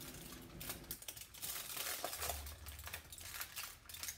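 Aluminium foil crinkling in irregular small crackles as it is gripped and lifted to roll up a bacon-wrapped meat roll.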